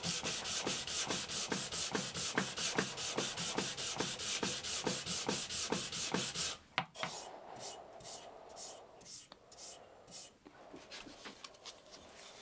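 Sanding a walnut and maple bottle holder by hand, with its brass pins being taken flush. Quick, even back-and-forth strokes for about six seconds, then slower, lighter strokes.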